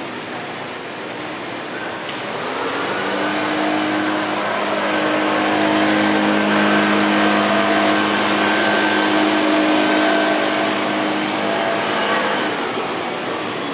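A vehicle's engine running with a steady drone. It swells in a couple of seconds in, holds at one pitch for about nine seconds, and fades out near the end, over street crowd noise.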